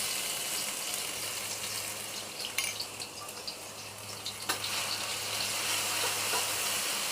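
Pounded shallot, garlic, ginger and black pepper paste sizzling steadily as it fries in a pan while being stirred, with a couple of sharp clicks from the utensil against the pan.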